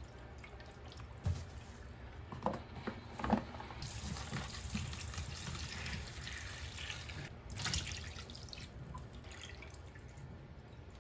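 Water running at a sink and dripping, with a few light knocks in the first few seconds.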